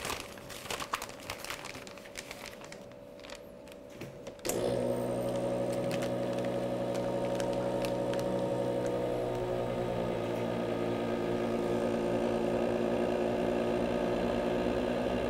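Vac-Star vacuum sealer's pump switching on about four seconds in and running with a steady hum as it draws the air out of a bag of steaks. Before it starts there are only a few light clicks from handling the bag.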